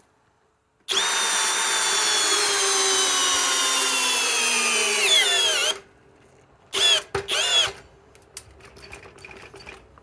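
Hercules 1200 inch-pound cordless drill driver driving a large lag screw into wood. Its motor whines for about five seconds, the pitch sinking steadily as it slows and bogs down under the load, then stops. Two short trigger bursts follow as the drill fails to turn the lag any further.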